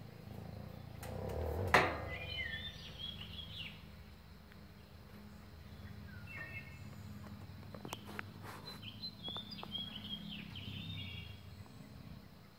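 Small wild birds chirping in quick twittering phrases, in two spells. There is a single sharp knock about two seconds in, the loudest sound, over a steady low outdoor rumble.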